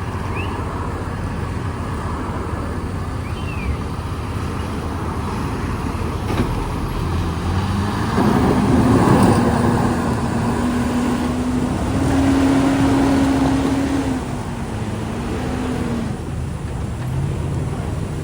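Heavy construction machine's diesel engine running at a worksite. It revs up about eight seconds in and again around twelve seconds with a steady tone under load, then drops back near the end.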